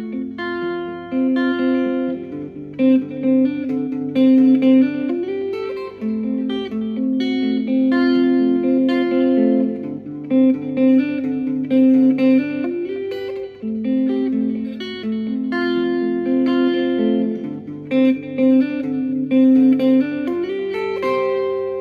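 Guitar music: a melody of single picked notes over ringing lower notes, with no singing.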